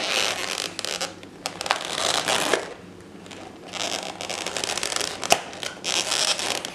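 Thin clear plastic lid being prised off a deli container, the plastic creaking and crackling, with a sharp snap about five seconds in. Repeated breathy hisses, each about a second long, come and go throughout.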